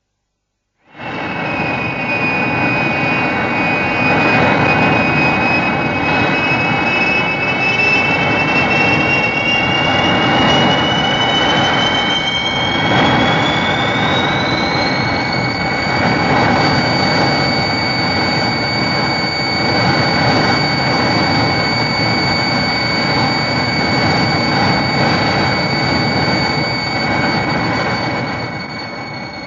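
Rodan monster sound effect: a long continuous rushing roar starting about a second in, with a high whine that climbs in pitch about halfway through and then holds steady.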